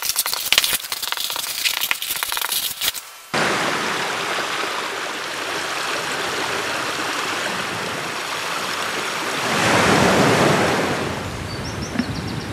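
A felt-tip marker scratching and squeaking across paper for about three seconds, cut off abruptly. Then a steady rush of water trickling and falling over rock, swelling louder for a couple of seconds near the end.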